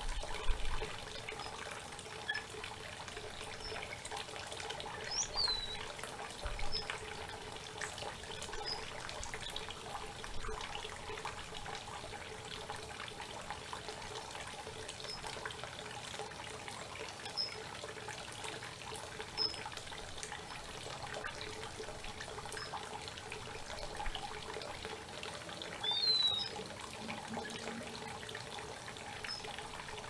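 Creek water flowing steadily, with a songbird giving short high chirps every few seconds and two quick falling whistles, one about five seconds in and one near the end.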